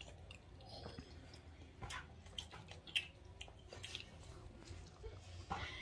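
Quiet mealtime sounds: a scattering of light clicks and taps of cutlery on plates, and chewing, over a low steady hum.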